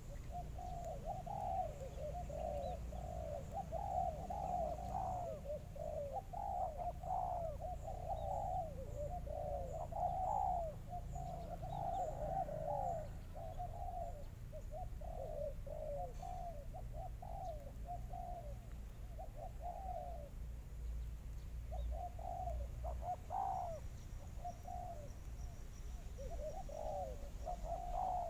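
Doves cooing: a long run of short, rapid, repeated coos with a couple of brief pauses. A steady low rumble runs underneath.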